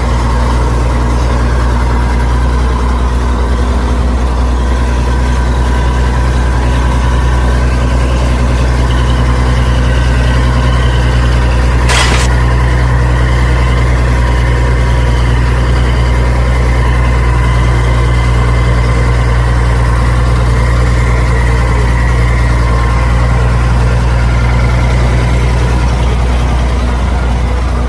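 Engine idling sound, loud and perfectly steady, with a single sharp click about twelve seconds in.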